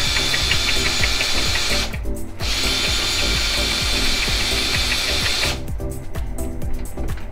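Electric rotating drain-cleaning machine (toler) spinning its cable through a grease-clogged drain pipe, a steady whir with fast ticking. It stops briefly about two seconds in, runs again, and cuts off a little after five seconds, leaving background music.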